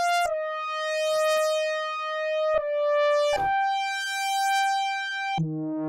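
Korg DW-8000 synthesizer playing a slow line of held single notes, each lasting one to two seconds, with a lower note coming in near the end. The sound is thickened by the synth's built-in digital delay set short for a stereo chorus, which makes the level swell gently up and down.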